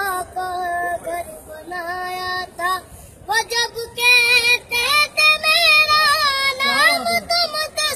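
A young girl singing a melody, holding long wavering notes with short breaks between phrases; from about halfway through she sings louder and higher.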